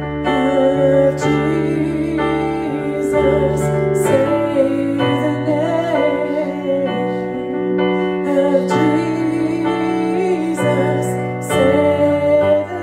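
Music: singing over piano and held keyboard chords.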